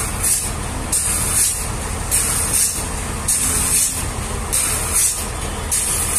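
Sawmill machinery running with a steady low engine hum, and a hiss that comes and goes about once a second in an even rhythm.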